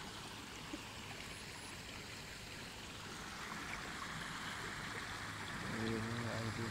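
Muddy water running steadily down a shallow channel and over a bamboo slat fish trap, an even rushing trickle. A low voice comes in near the end.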